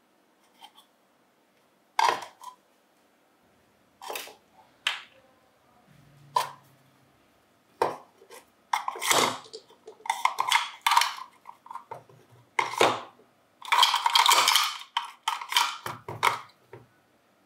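Small metal parts and tools clinking and knocking as they are handled and set down: separate sharp clinks with short quiet gaps, getting busier in the second half, with a longer rattling stretch a little past the middle.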